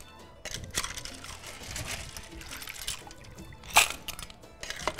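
Small clams in their shells clinking and rattling as they are ladled into an enamel bowl with a perforated metal skimmer, broth dripping off them. The clinks come irregularly, with one sharp, loud clink near the end.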